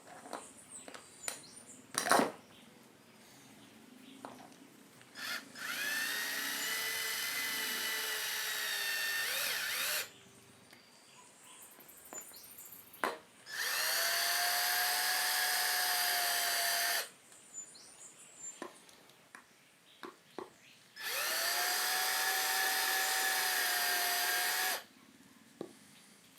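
Cordless drill driving three wood screws through a 2x4, one after another: three runs of a few seconds each, the motor whine rising as it spins up and then holding steady. Between the runs are clicks and knocks of handling.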